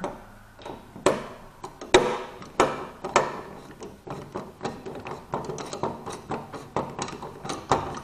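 Screwdriver backing out a long, fine-threaded outlet mounting screw from a metal electrical box: a string of irregular clicks and taps, about one or two a second, as the driver turns in the screw head.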